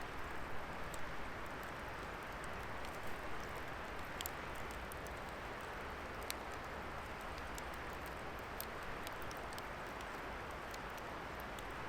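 Wood fire burning with a steady hiss, broken by scattered sharp crackles and pops from the burning wood.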